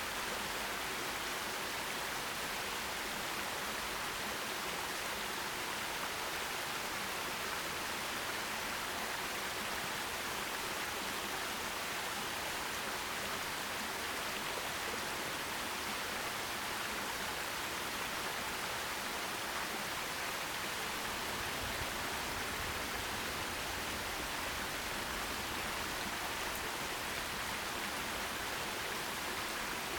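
Forest stream flowing: a steady, unbroken rush of water, hissy rather than deep, with no distinct splashes.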